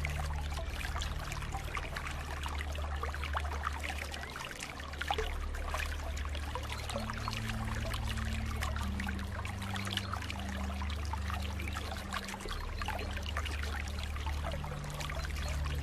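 Water trickling and pouring over stones in a small stream, a dense patter of little splashes. Underneath runs a low droning tone that shifts in pitch every few seconds.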